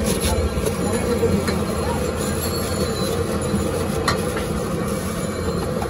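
Steady mechanical drone with a few faint sharp clicks.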